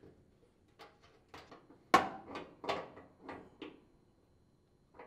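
Open-end wrench tightening the nut on a dryer's sprayer nozzle: a run of about ten sharp metal clicks and clinks as the wrench is worked on the nut against the drum wall, the loudest about two seconds in.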